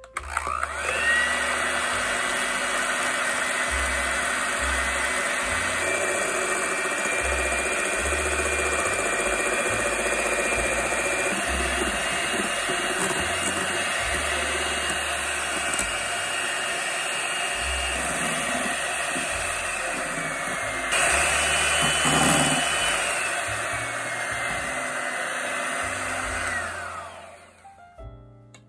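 Electric hand mixer running steadily, whipping eggs and sugar into a thick, pale sponge-cake foam. Its motor whine shifts pitch several times as the speed changes, is loudest about two-thirds of the way through, and stops a second or two before the end.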